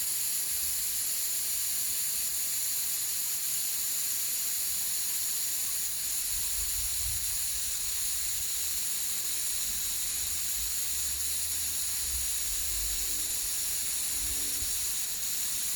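Compressed air hissing steadily out of a SKAM 12 pneumatic telescopic mast through a tyre inflator's release valve, the sound of the pressure being dropped as a mast section lowers.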